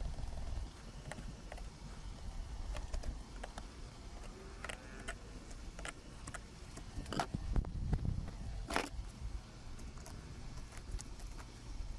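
Filleting knife working along a jewfish's (mulloway's) backbone and ribs: scattered small clicks and scrapes as the blade runs over the bones, with a couple of sharper knocks about two-thirds of the way through.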